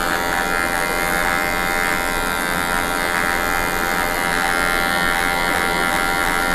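Cordless electric hair clipper fitted with a No. 1 guard, buzzing steadily as it cuts hair short at the back of the head.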